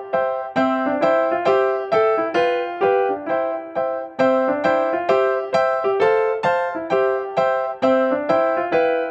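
Background music: a keyboard melody of single, clearly struck notes, each dying away quickly, about three notes a second at an even pace.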